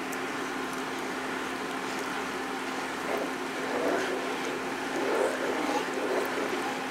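Steady hum of a NuWave induction cooktop running under a frying pan of gravy. From about three seconds in, a spoon stirs and scrapes through the thick gravy in the nonstick pan.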